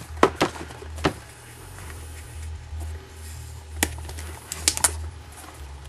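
Cardboard packaging of a Zune media player being handled and opened: a few sharp clicks and taps of the board and flaps, a cluster early on and a few more near the end, over a low steady hum.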